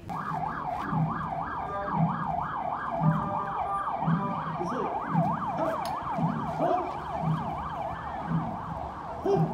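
An emergency vehicle's yelp siren, its pitch sweeping quickly up and down several times a second. Under it a low thump repeats about once a second.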